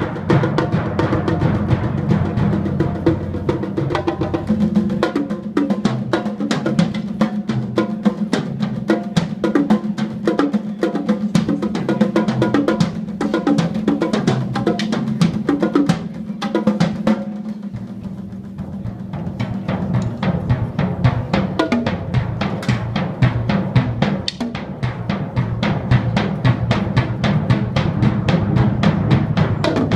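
Percussion ensemble playing: a fast, steady stream of drum strokes over low pitched drum tones. The playing drops back for a few seconds a little past halfway, then builds again.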